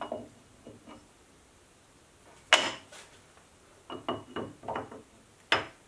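Steel V-blocks being set down and shifted on the milling machine's T-slotted table, their keys going into the slots: separate metallic clunks and clinks, the loudest about two and a half seconds in, a quick run of clinks around four seconds and a last knock near the end.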